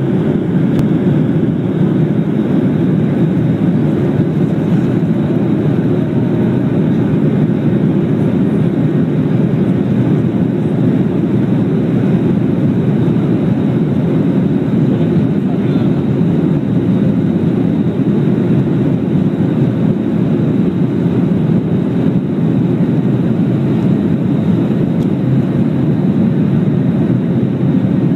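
Jet airliner's engines at takeoff thrust, heard inside the cabin during the takeoff roll: a loud, steady, deep rumble.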